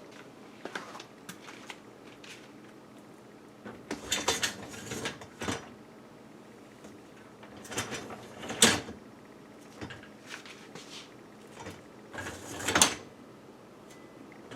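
Dishwasher rack rattling and clicking as it is moved. It comes in three bursts, each ending in a sharper knock about nine and thirteen seconds in.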